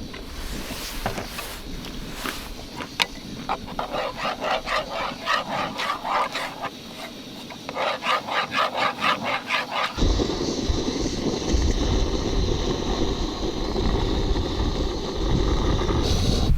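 Two runs of quick rhythmic scraping or rubbing strokes, about four a second. About ten seconds in the sound changes abruptly to a steady rush of wind.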